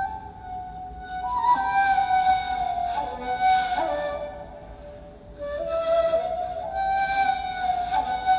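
Ney, the end-blown reed flute, playing a slow, breathy melody: a held note, then a phrase that rises and steps down in pitch, a short lull near the middle, and a second phrase that climbs again.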